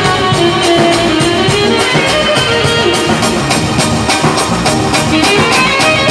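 Live band dance music: an electronic keyboard playing the melody over a drum kit's steady beat.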